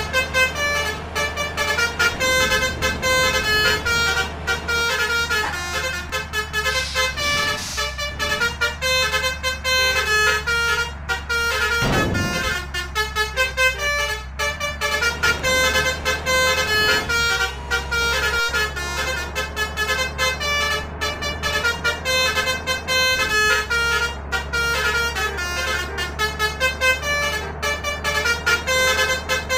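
Indonesian bus 'telolet' horns, multi-tone musical air horns, playing a quick, nearly unbroken string of short melodic notes over a steady low engine drone.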